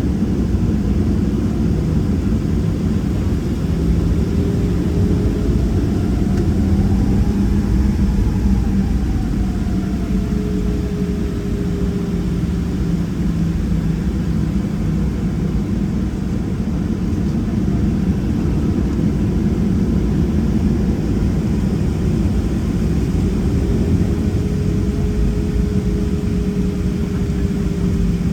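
Boeing 737-700's CFM56-7B jet engines running at taxi power, heard from inside the cabin: a steady low rumble with engine tones that slowly rise and fall.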